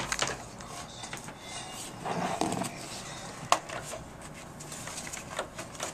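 Closing seconds of a movie trailer playing faintly through laptop speakers: quiet background sound broken by a few sharp knocks, one about three and a half seconds in.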